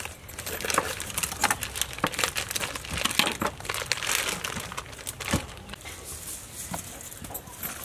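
Plastic sausage packaging crinkling and tearing as hands pull it open, with dense crackling for about five seconds. It then thins out to a few light knocks as a knife cuts on the wooden cutting board.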